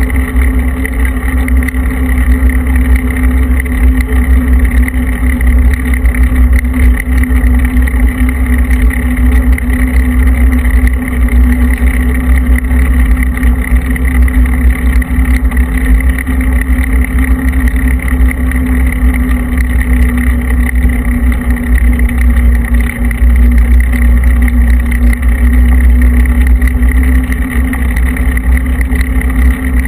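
Wind buffeting the microphone of a camera moving along fresh asphalt, a loud flapping rumble over a steady road drone that does not change pitch.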